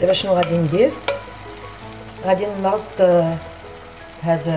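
Onion and tomato sauce sizzling in an electric tagine pot while being stirred with a wooden utensil.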